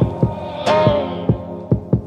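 Background music: a track with low drum hits under a sustained melodic tone that glides slightly downward.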